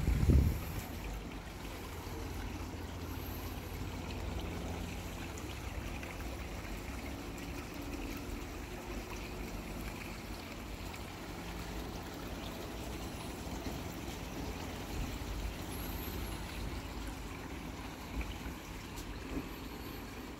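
Small garden pond waterfall trickling and splashing steadily, with a low rumble underneath. A brief bump sounds right at the start.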